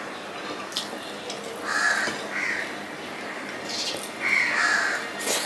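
Crows cawing, a few harsh caws about two seconds in and again from about four seconds in, over a few soft clicks from fingers working rice on a plate.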